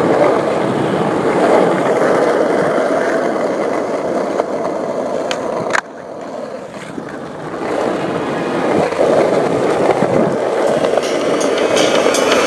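Skateboard wheels rolling over asphalt in a steady rumbling hiss, with a sharp click about six seconds in where the sound suddenly drops and then builds back up.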